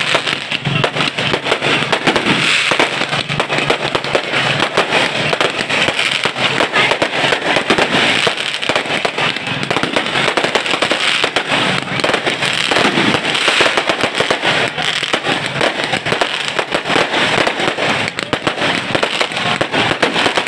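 Fireworks going off in a dense, unbroken run of sharp pops and crackles, many per second, at a steady loudness.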